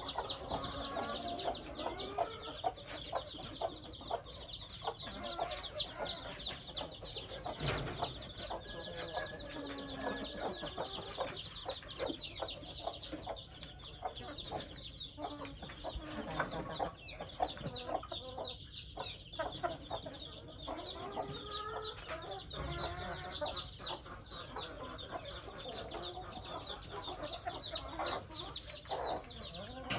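A flock of chickens clucking, over a constant chorus of many rapid, high-pitched peeps, with occasional knocks.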